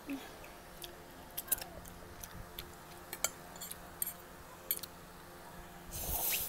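Close-miked eating sounds: scattered sharp clicks from chewing and a metal fork against a glass baking dish as noodles are twirled, then a loud slurp of instant noodles near the end.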